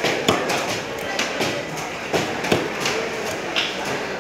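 A heavy knife chopping into a large fish: about five sharp knocks at uneven intervals, over a background of market voices.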